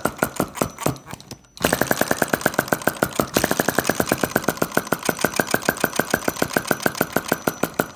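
Homemade fire eater (flame-licker) engine running fast with a rapid, even clatter of about ten beats a second. It falters and drops out briefly about a second in, then picks straight back up and runs steadily.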